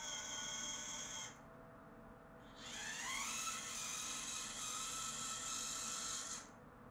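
Axial SCX24 Bronco RC crawler's brushed electric motor and drivetrain whining as it drives. It stops about a second in and starts again a second later, its pitch rising as it picks up speed. It then runs steady until it cuts off near the end.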